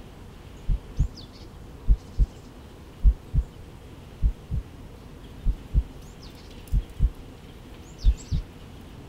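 Slow heartbeat: low, paired lub-dub thumps repeating about every 1.2 seconds, with a few faint high chirps.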